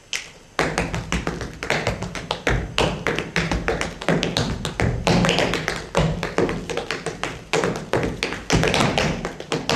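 Tap dancing: tap shoes striking a hard floor in a fast, irregular run of sharp taps with louder accented strikes.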